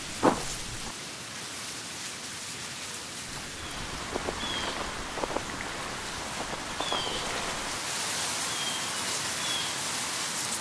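A small river rushing steadily, with a few short high bird chirps through the middle. There is one sharp knock, like a footstep, just after the start.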